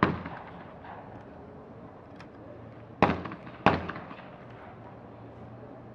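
Two 12-gauge shotgun shots about half a second apart, about three seconds in: a skeet double fired at a pair of targets. A single sharp report comes right at the start.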